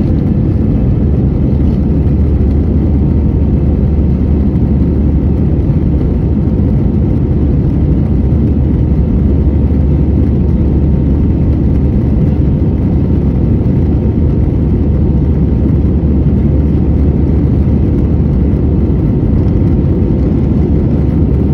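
Cabin noise inside an Airbus A320-216 airliner in flight, heard from a window seat beside the wing: a loud, steady low drone of its CFM56 jet engines and the airflow, with a faint steady hum above it.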